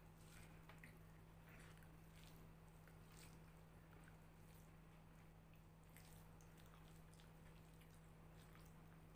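Near silence: faint, scattered wet squishing and clicking of fingers mixing rice and curry on glass plates, with soft chewing, over a steady low hum.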